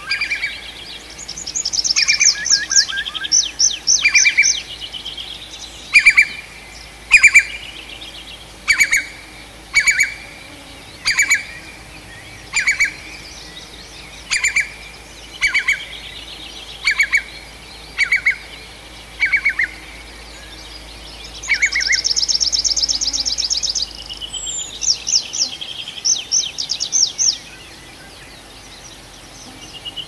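Songbird singing: a long run of loud, sharp single notes, about one a second, through the middle, with fast high trills near the start and again near the end.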